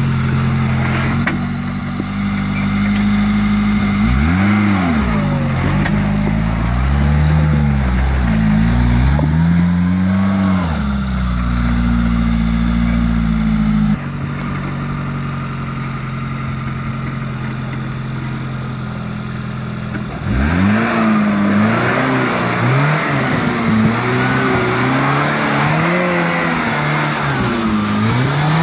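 A Suzuki four-wheel drive's engine revving up and down again and again as it crawls over rocks and roots off-road, steady for stretches between the revs.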